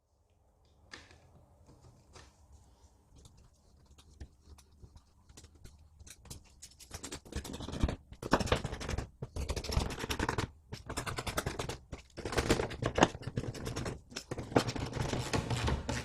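Hand tool rasping against metal in quick repeated strokes, in bursts of a second or two with short pauses. It starts about seven seconds in, after faint scattered clicks of handling.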